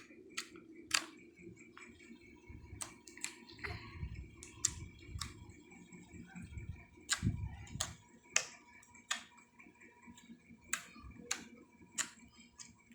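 Sticky slime being squeezed and stretched in the hands, giving irregular sharp clicks and pops, with soft squishing handling noise through the middle.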